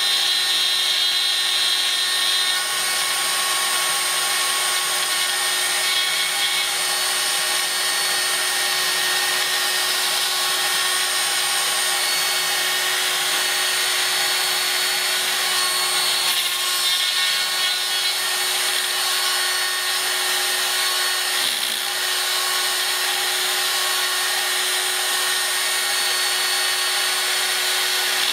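Proxxon mains-powered rotary drill running at high speed, about 20,000 rpm, in a pantograph engraver, its small cutter milling nickel silver sheet. A steady high whine with an even cutting hiss, holding level throughout.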